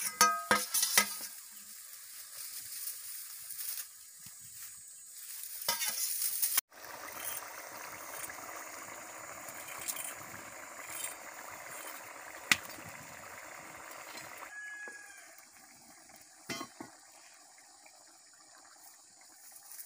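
A metal plate used as a lid clinks against the kadai right at the start. After an abrupt cut, a fish curry bubbles steadily in the open kadai, and the bubbling grows quieter about two-thirds of the way through.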